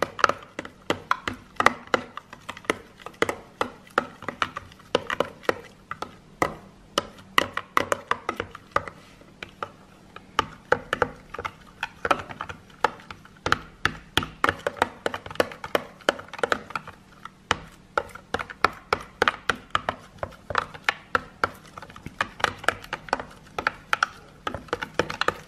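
Spoon stirring liquid hand soap and dish soap quickly in a clear plastic tub, clicking and tapping against the sides and bottom several times a second.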